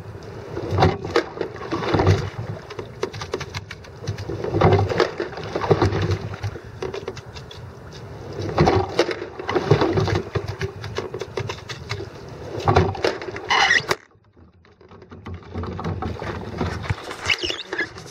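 Sculling boat being rowed: knocks and water noise come with each stroke, in pairs about a second apart repeating every three to four seconds. The sound drops out suddenly near the end, then close fumbling at the camera.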